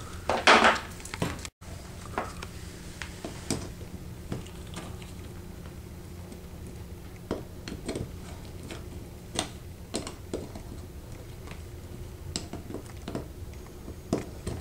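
Small clicks and taps of metal and plastic parts as a refrigeration temperature-control unit is handled and worked on with a screwdriver, with a louder scrape about half a second in, over a steady low hum.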